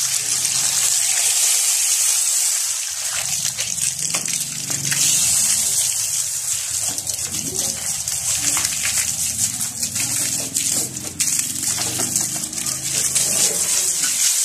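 Water from a hose spraying and splashing hard against a motorcycle's spoked front wheel, mudguard and engine casing, rinsing off washing-powder suds, a steady hissing gush.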